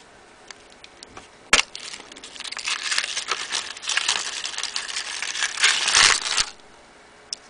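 Foil wrapper of a chocolate surprise egg being unwrapped and crinkled by hand, starting with a sharp snap and then crackling for about five seconds before stopping abruptly.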